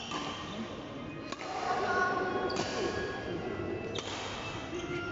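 Badminton rally: a racket strikes the shuttlecock three times, roughly a second and a half apart, each a sharp crack over the background din of the hall.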